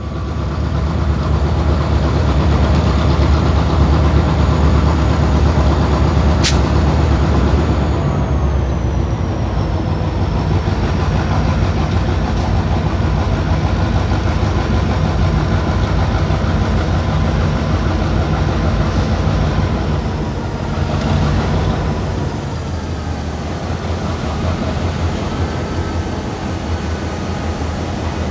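EMD 645 diesel engines of two SD38AC locomotives and a tunnel motor rumbling as a loaded taconite train rolls in and slows to a stop. A high whine falls in pitch about a third of the way in, there is one sharp click about six seconds in, and the sound eases a little after about twenty seconds.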